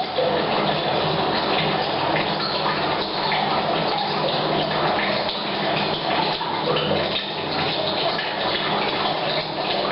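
Rain falling steadily on a roof, mixed with tap water pouring from a pipe into a water tank, echoing in a bathroom.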